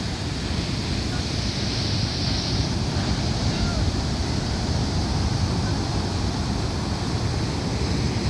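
Ocean surf rushing steadily, with wind buffeting the microphone.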